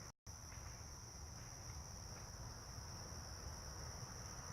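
A steady chorus of crickets at night, a continuous high-pitched trill, faint. It cuts out to silence for a moment just after the start.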